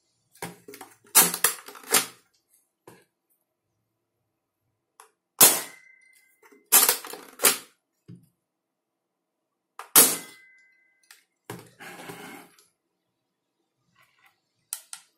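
Homemade M303 spring airsoft pistol being cocked and fired: clacks of the slide being pulled back to the end and returned, and two shots about five and ten seconds in, each followed by a short ring.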